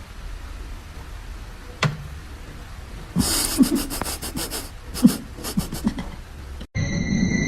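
An animal panting in a run of quick, breathy puffs, after a single click. Near the end it cuts off abruptly and steady electronic tones begin.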